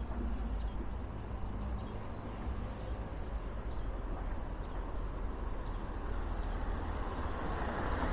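Steady road-traffic noise from the street alongside: a low rumble with no distinct events, growing slightly louder near the end.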